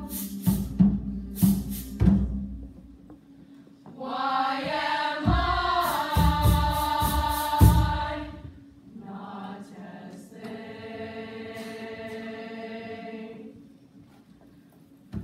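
Choir singing. Sharp percussive beats come in the first two seconds and again under a loud held chord from about four to eight seconds in. A softer held chord follows, then a brief pause.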